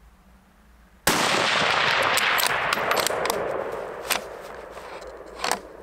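A single shot from a Tikka T3x CTR bolt-action rifle in .223 about a second in, its report rolling on and fading over a few seconds. Near the end come a few sharp metallic clicks as the bolt is worked.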